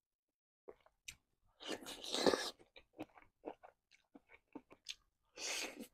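Close-miked mouth chewing cuttlefish in spicy sambal: a run of short wet clicks and smacks, with two longer, louder noisy rushes about two seconds in and again near the end.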